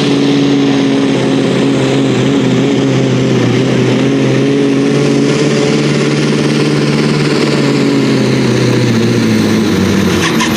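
Competition pulling tractor's diesel engine running flat out under load as it drags the weight sled: a loud, steady engine note whose pitch sags over the last couple of seconds as the engine is pulled down.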